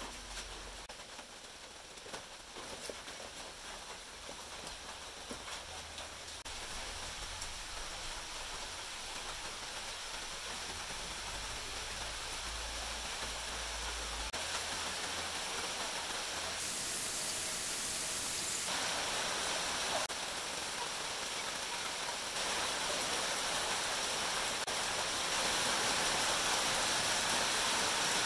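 Steady hiss that slowly grows louder, with a few faint clicks in the first few seconds.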